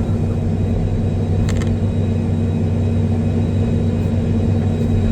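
Diesel excavator engine running steadily under working load, a deep even hum. A brief click is heard about a second and a half in.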